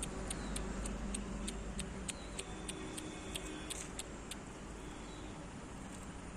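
Faint background with a fast, even high-pitched ticking, about four ticks a second, that stops about four seconds in.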